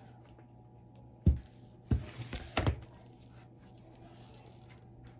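Four or five soft finger taps on a picture book's page, pressing the printed button several times in quick succession.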